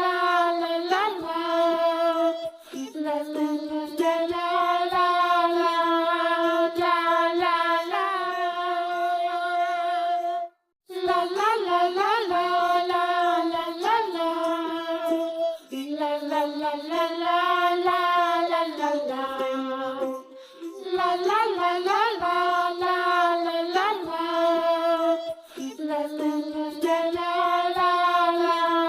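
Background children's song: a high, child-like voice sings long held notes in a simple melody over music, with a short break about ten seconds in.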